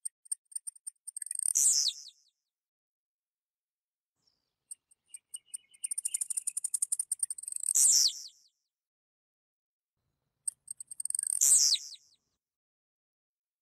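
Blue-black grassquit (tiziu) singing three songs about four to five seconds apart. Each song is a run of quick ticks leading into a loud, high note that slides down in pitch.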